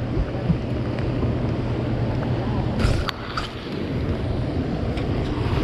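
Wind and rain noise on an open boat, buffeting the microphone, with a steady low hum underneath. A few sharp clicks come about three seconds in.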